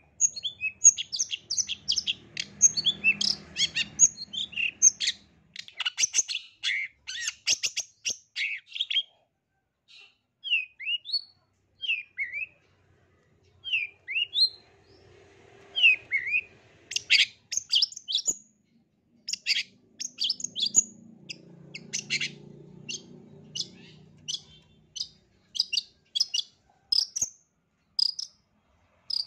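Long-tailed shrike singing a rapid chatter of short, sharp high notes. In the middle the song thins to a sparser string of downward-sliding notes, then turns rapid again.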